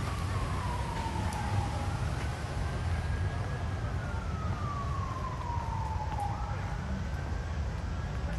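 An emergency vehicle siren in a slow wail, one tone rising and falling about once every four to five seconds, over a steady low rumble.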